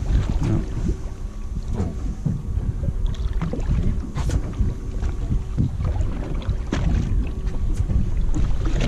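Wind rumbling on the microphone aboard a small fishing boat, with scattered light knocks.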